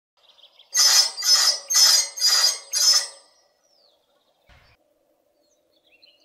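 Intro logo sound effect: five quick rhythmic bursts with a high ringing shimmer, about half a second apart, dying away around three seconds in. After it come faint bird chirps outdoors and a soft thump.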